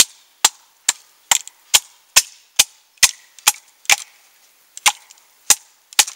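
Batoning: a wooden baton knocking on the spine of a large knife to split a length of dead pine. The sharp wooden knocks come a little over two a second, with a short pause about four seconds in.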